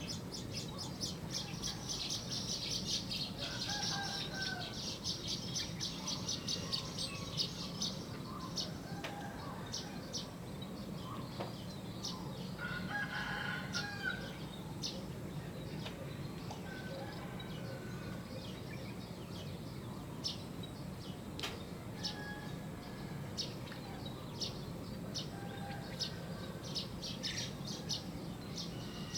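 Songbirds chirping in fast chattering runs, with a rooster crowing partway through, over a steady low background rumble.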